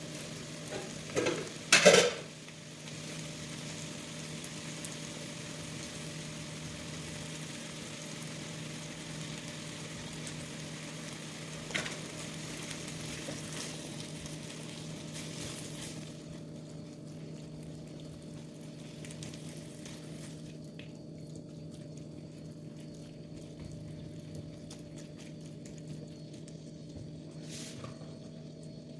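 Food sizzling steadily in a frying pan, with a utensil clattering against the pan a few times about a second or two in and a single knock later. The sizzle grows quieter a little past halfway.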